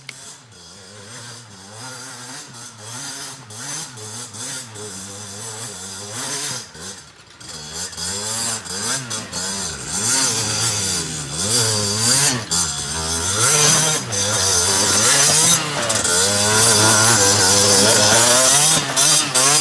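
Two-stroke enduro motorcycle engine revving up and down over and over as the bike rides over rough ground, getting steadily louder as it comes closer.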